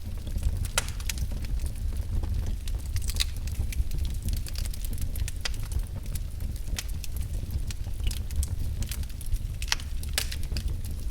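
Wood fire burning in a fireplace: a steady low rumble of flames with scattered crackles and sharp pops, a few louder pops about a second in, around three seconds in, and near the end.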